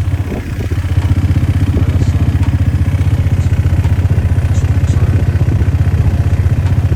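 Quad bike engine running steadily close by, with an even, rapid low pulse that settles in about a second in.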